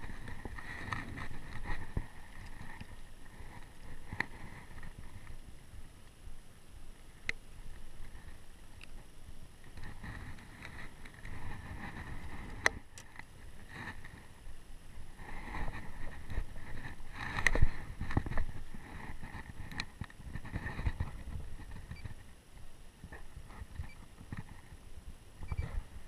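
Small fishing boat sitting on calm water: low, uneven water and handling noise with a few sharp knocks, the loudest about seventeen seconds in.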